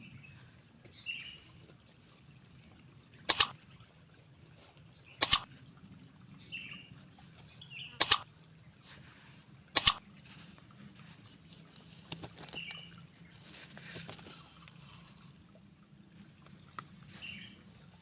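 Short, high bird chirps repeating every few seconds, matching the white-breasted waterhen calls used to lure birds to the trap. Four loud, sharp clicks stand out between about three and ten seconds in, over a faint low hum.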